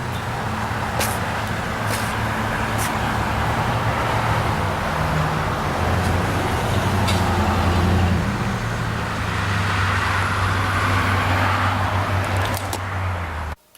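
Motor vehicle running, a steady engine hum that shifts a little in pitch under road noise, with a few light clicks. It cuts off suddenly near the end.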